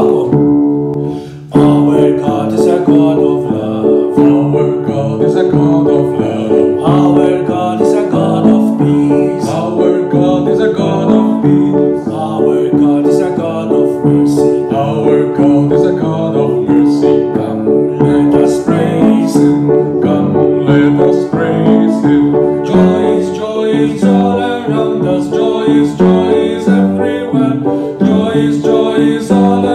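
Instrumental background music with plucked-string notes, after a brief break about a second in.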